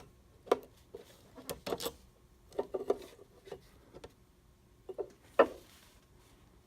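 Scattered small clicks and taps of tiny tuner screws and metal tuner hardware being handled and fitted on a wooden mandolin headstock, with one sharper tap about five seconds in.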